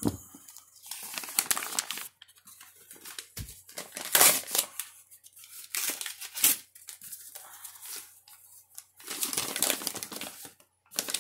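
Paper mail being torn open and handled: several short bursts of paper tearing and crinkling with quiet gaps between.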